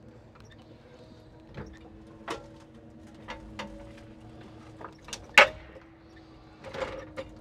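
Jonsered timber crane on a log truck working: a steady hum from the truck's hydraulic drive under a series of irregular metallic clunks and knocks from the crane and its grapple, the loudest about five and a half seconds in.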